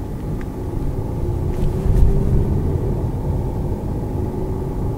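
Car cabin noise while driving slowly through town: a steady low engine and tyre rumble as the car picks up speed, with a brief thump about two seconds in.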